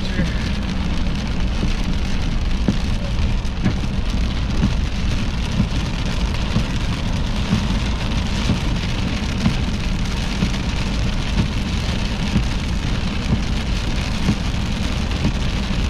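Heavy rain pouring down in a storm, a steady, dense patter of drops hitting hard surfaces.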